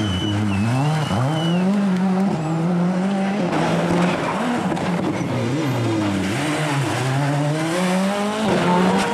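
Škoda Octavia WRC rally car's turbocharged four-cylinder engine revving up and down hard as the driver shifts and lifts through a tight corner, with tyre squeal as the car slides.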